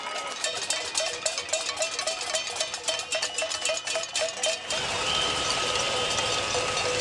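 Steel cooking pots being banged in a cassolada, a pot-banging protest: rapid, dense metallic clanging with a small chirp repeating about three times a second. About two-thirds of the way through it changes to a steady crowd din with a held tone over it.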